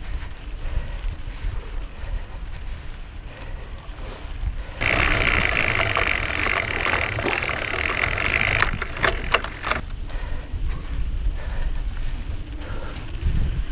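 Mountain bike riding fast down a dirt singletrack: wind buffeting the bike-mounted camera's microphone and knobby tyres rumbling over the dirt. About five seconds in the sound turns suddenly to a brighter, hissing rattle for about five seconds, with a few sharp clicks near its end, then returns to the low rumble.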